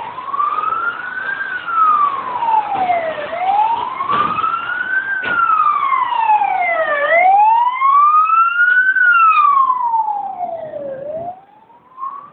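Emergency vehicle siren wailing, a slow rise and fall in pitch about once every four seconds, three times over. It is loudest on the third rise and cuts off shortly before the end.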